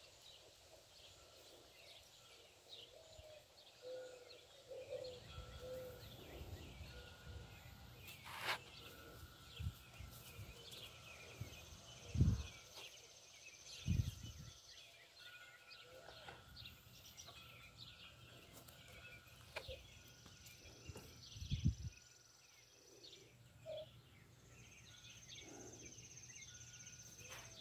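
Quiet outdoor ambience: faint scattered bird chirps and a thin insect buzz that comes and goes. A few brief low thumps stand out, about twelve, fourteen and twenty-two seconds in.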